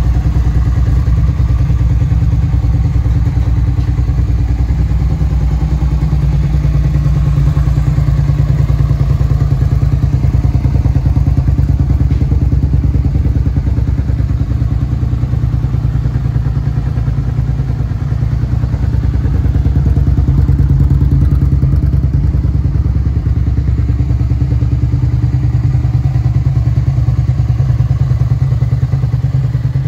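Suzuki SV650's 645 cc V-twin engine running steadily at idle.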